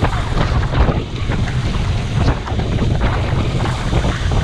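Rushing river water with irregular splashing from a paddled raft, under a heavy low rumble of wind buffeting the microphone.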